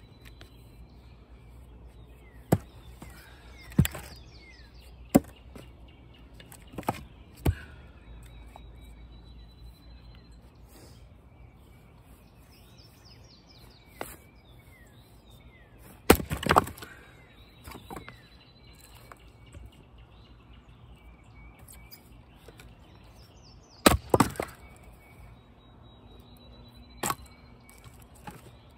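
Wood-splitting blows on knotty red maple rounds: about ten sharp strikes spaced irregularly, some in quick clusters where the wood cracks apart, the loudest about halfway through and again about two-thirds in.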